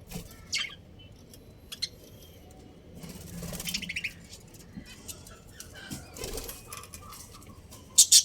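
Budgerigars chirping and chattering, short high calls scattered through, with a longer warbling chatter about three seconds in. Near the end come three loud, sharp bursts in quick succession.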